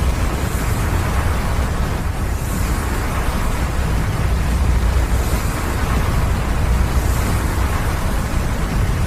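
Avalanche of snow and debris pouring into a river, making a deep, steady rumble with a rushing noise over it.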